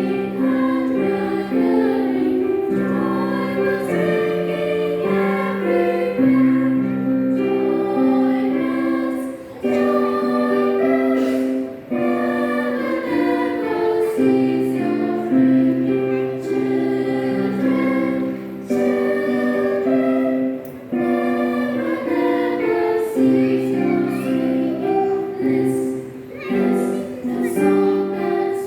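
Children's church choir singing a hymn together, with held, stepping notes and short breaths between phrases.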